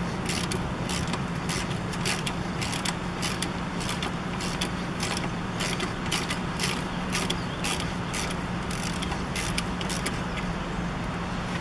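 Socket ratchet clicking over and over, about three to four clicks a second, as a rusted suspension bolt is backed out by hand.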